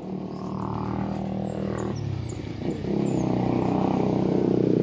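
An engine running with a steady hum that dips briefly about halfway through, then grows louder over the last two seconds.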